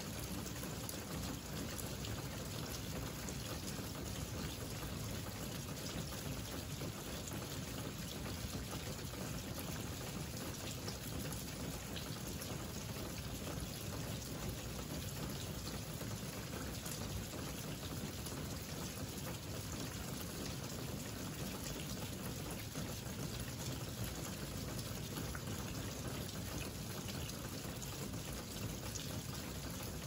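Steady rain falling: an even hiss with many small drop ticks.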